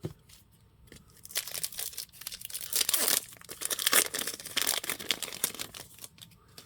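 Crinkling and tearing of a foil trading-card pack wrapper being ripped open and handled, a run of crackles loudest about halfway through, after a single click at the start.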